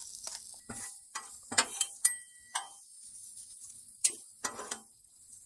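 Hand-twisted pepper grinder cranking out black pepper: a quick run of ratcheting clicks. Underneath, onions sizzle faintly on the hot griddle, and about four seconds in a few sharp scrapes of metal spatulas on the flat top.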